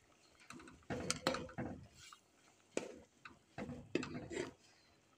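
Metal spoon stirring rice and chana dal in a steel pot, knocking and scraping against the pot's sides in a series of irregular clinks.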